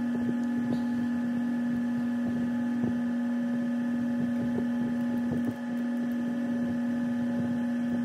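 A steady, constant-pitch hum runs throughout, with faint small ticks and scrapes of a jeweler's screwdriver prying at a plastic wiring connector.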